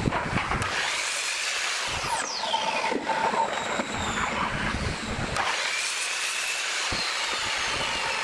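Electric mitre saw cutting pine pallet boards into short blocks: the motor running and the blade biting through the wood, with a falling whine about two to three seconds in as the blade winds down.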